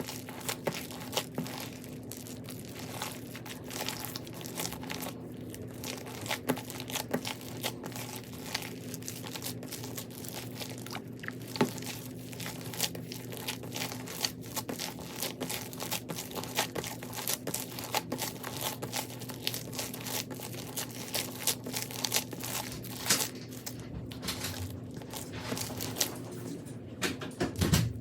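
Crunchy slime packed with more beads than slime being squished and pressed: a dense, continuous run of small crackles and pops, with a heavier squish near the end.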